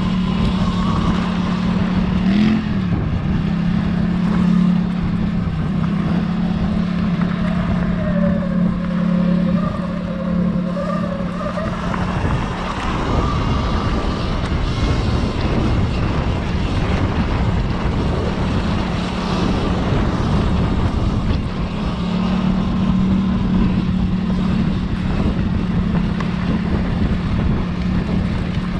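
Off-road vehicle riding along a trail: a steady motor tone over a dense rush of wind and trail noise. The tone drops out for several seconds in the middle and comes back later.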